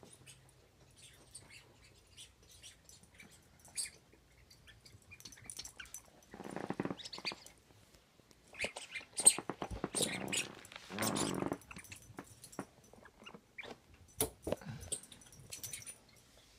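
Small dog playing with a toy on carpet: scattered clicks and rustles, with two short noisy bursts in the middle stretch.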